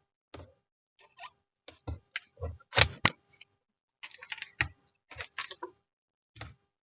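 Irregular clicks and light knocks from handling objects by hand, loudest about three seconds in.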